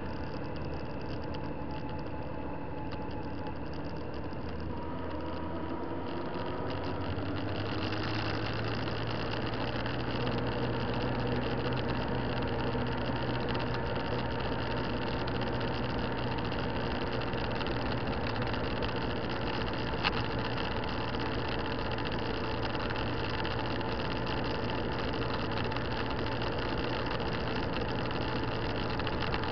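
Motorcycle engine running under way, with wind and road noise. The engine note rises and grows louder about seven seconds in, then holds steady at cruising speed, with one brief click about two-thirds of the way through.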